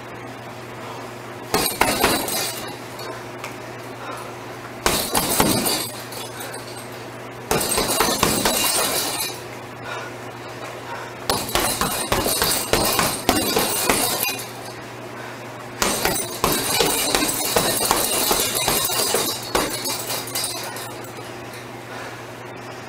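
Flurries of gloved punches on a hanging heavy bag, the impacts mixed with the clinking jangle of the bag's metal suspension chain. They come in five bursts of one to four seconds, with short pauses between.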